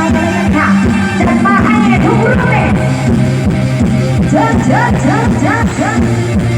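Live Thai band music played loud through a concert sound system, with a steady fast beat, sustained bass notes and a melody that bends up and down in pitch.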